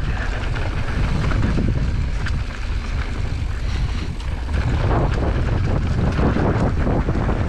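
Wind buffeting a GoPro's microphone as a mountain bike rolls down dirt singletrack: a steady low rumble, with a light rattle of tyres and bike over the trail.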